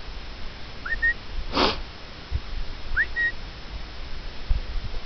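Two short whistled calls to the puppies, about two seconds apart, each sliding up and then held briefly. A brief hiss falls between them, over a steady low wind rumble on the microphone.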